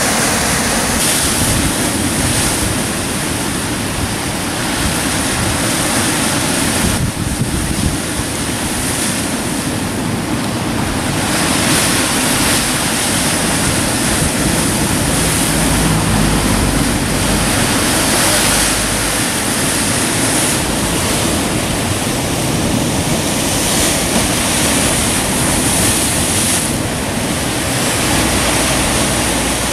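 Heavy sea surf breaking against a rocky lava shoreline, a continuous loud rush that swells and eases as each wave comes in. Wind buffets the microphone in low rumbles about halfway through and again near the end.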